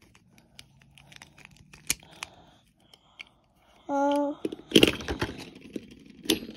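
Light plastic clicks as Beyblade parts are snapped together by hand. About five seconds in comes a loud, short clatter as the top is set spinning on a hardwood floor.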